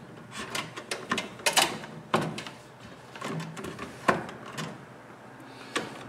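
Irregular clicks, knocks and rustling as electrical cable is pushed into a plastic switch box and handled against a wooden wall, with a few sharper knocks standing out.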